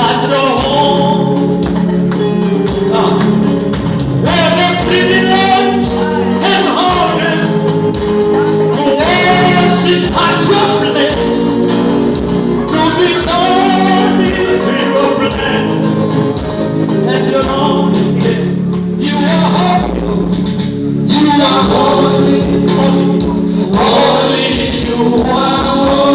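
Gospel worship music: voices singing over sustained instrumental backing.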